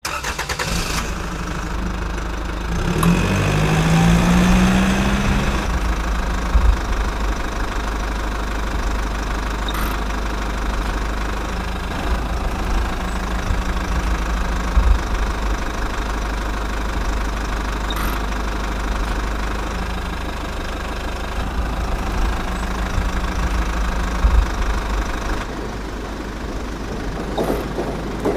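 An engine running steadily with a knocking, idling sound, revving up briefly about three to five seconds in.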